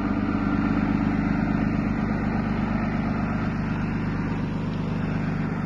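Ram 5500 pickup truck's engine idling steadily.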